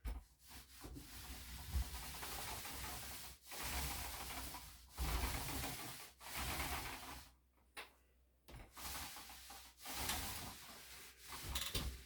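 Paint roller loaded with primer being rolled over drywall in repeated strokes, each a rasping, sticky rub lasting one to three seconds, with short pauses between strokes.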